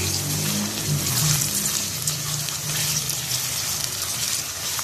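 Mutton pieces sizzling in hot ghee with fried onions, a steady hiss, while a silicone spatula stirs them around the metal pot.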